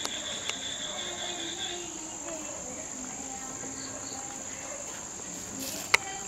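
Crickets trilling steadily at night in a high, unbroken drone, with a second pulsing insect call that stops about two seconds in. A single sharp click near the end.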